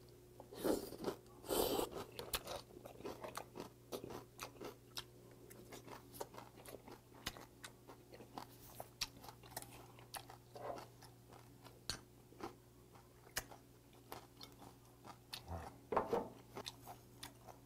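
Close-up chewing of a mouthful of raw jaridom (Jeju damselfish) and crisp julienned vegetables in doenjang mulhoe, with many small crunches from the fish's tough bones and the vegetables. The mouthful is taken in loudly about a second in, and there is another loud mouth sound near the end.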